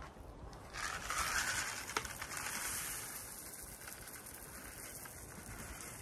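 Gravel poured out of a bucket onto a dirt footing pad: a steady rushing, rattling pour that starts about a second in and runs for several seconds, with a single knock about two seconds in.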